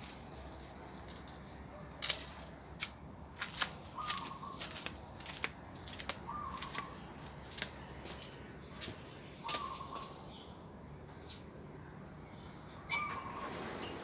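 A bird repeats a short call four times, every two and a half to three seconds. Scattered sharp clicks and rustles sound in between; the loudest click comes just before the last call.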